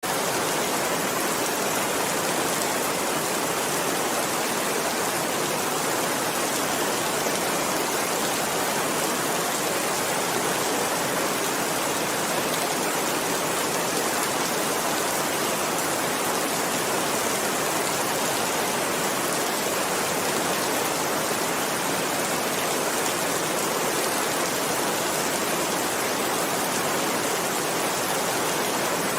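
Steady rain falling, an even hiss that holds at the same level throughout with no gusts, thunder or crackles.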